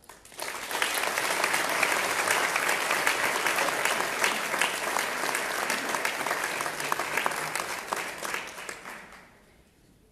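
Audience applauding: dense clapping that starts within the first half second and dies away about a second before the end.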